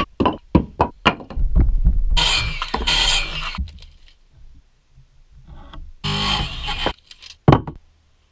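Short blocks of 2x4 lumber knocking and tumbling on a wooden deck, a quick run of hard knocks in the first second. This is followed by stretches of scraping and rustling as the wood is handled, and one sharp knock near the end.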